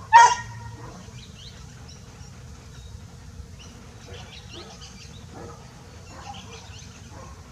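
A single loud, sharp bark just after the start, then faint, high, short bird chirps and twitters scattered through the rest.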